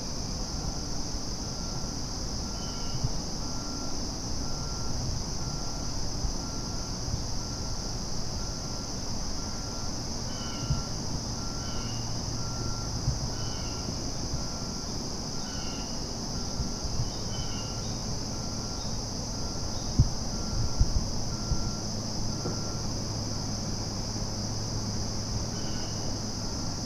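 Evening insect chorus: crickets and katydids give a steady high buzz, with a slower, evenly repeated chirp of another insect underneath. A low hum runs beneath it, and a few brief thumps come about two-thirds of the way through.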